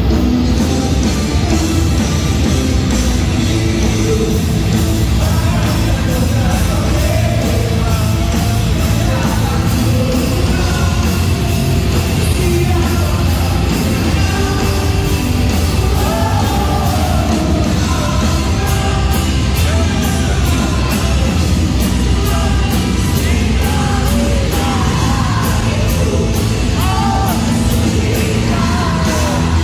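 Heavy rock played live by a band with distorted electric guitars, with a male lead singer singing and yelling high over it.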